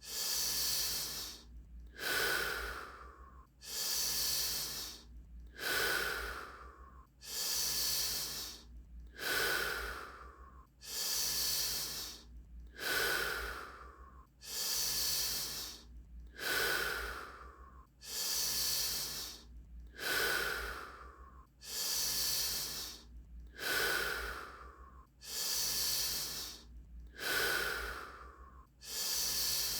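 Wim Hof method power breathing: a person taking deep, forceful breaths in and out in an even rhythm, about one full breath every two seconds.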